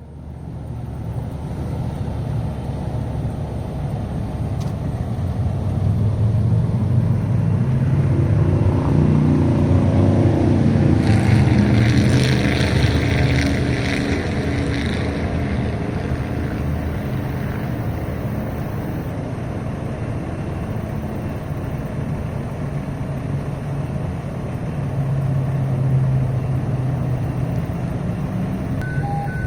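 Fire truck's diesel engine running close by. It grows louder to a peak around the middle and eases off, with a few seconds of hissing rush near the middle.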